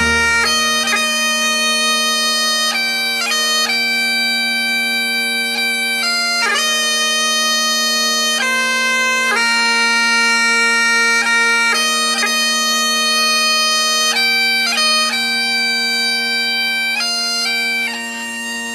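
Bagpipes playing a tune: a steady drone holds one low note throughout while the chanter moves through the melody note by note above it.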